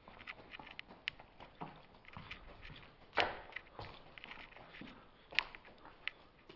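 Faint footsteps on a gritty concrete floor: irregular scuffs and crunches of debris underfoot, with a louder knock about three seconds in.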